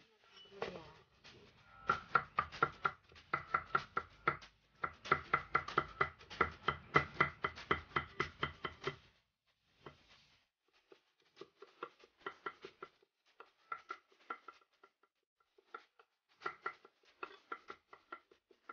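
Cleaver chopping garlic cloves on a thick round wooden chopping block, in quick, evenly repeated knocks. A long steady run comes first, then after a short pause come three shorter runs of chopping.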